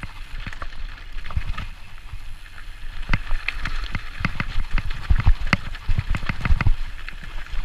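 Mountain bike rolling over a loose, rocky gravel trail: tyres crunching on stones and the bike rattling in irregular knocks and clicks, over a low rumble.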